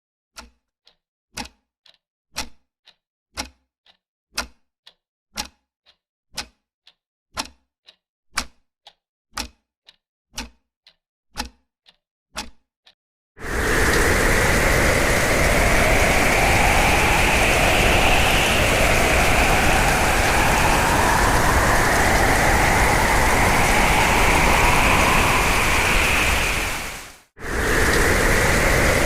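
Steady ticking, about one strong tick a second with a fainter one between. About halfway through, strong hurricane wind starts abruptly and howls, its pitch slowly rising and falling. The wind cuts out for a moment near the end.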